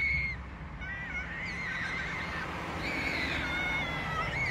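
A child's high-pitched, wavering squeal held for several seconds, with a low rumble underneath.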